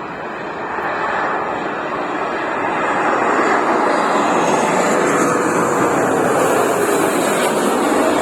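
A jet airliner passing by. The engine rush swells over the first few seconds and stays loud, with a faint whine that slides down in pitch.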